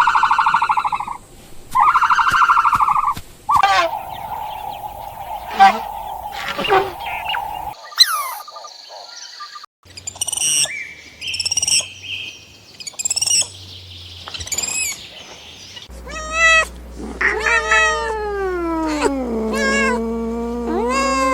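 A string of short animal calls from several clips cut one after another: two calls early on, then higher chirping calls, and near the end long wavering calls that slide down in pitch.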